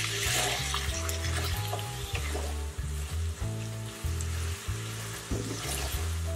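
Moong dal and rice frying in ghee, sizzling steadily as a wooden spatula stirs them around a non-stick kadai. Background music with a repeating bass line plays underneath.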